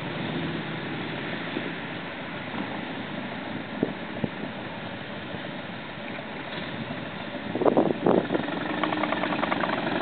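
Motorcycle engine idling steadily, with wind on the microphone, a couple of short knocks about four seconds in and a louder burst of noise near the end.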